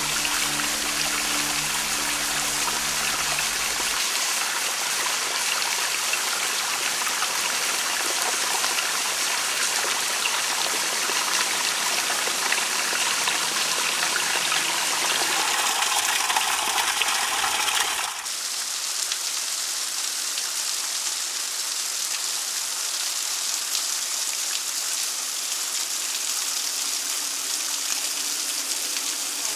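Brankovský waterfall, thin streams of water falling and splashing down a steep rock face, a steady rushing hiss. About 18 seconds in it changes abruptly to a slightly quieter, higher, thinner hiss. Faint music tones fade out in the first few seconds.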